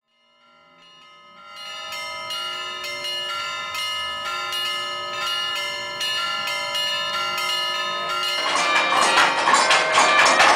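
Chime of large church tower bells being played, struck notes following one another about twice a second, each ringing on under the next, fading in from silence. About eight seconds in the ringing turns louder and denser.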